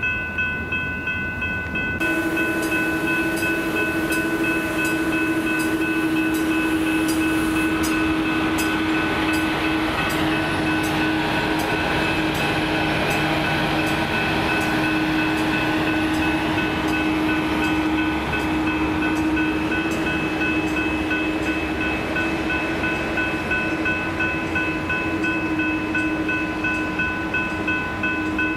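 Grade-crossing warning bells ringing in a steady repeating pattern while a CapMetro MetroRail Stadler GTW diesel multiple unit passes through the crossing. A steady lower hum joins about two seconds in, and the train's rolling noise is loudest in the middle.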